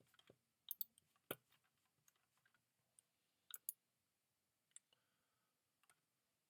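Faint, scattered sharp clicks of a computer mouse, some in quick pairs, a handful over several seconds.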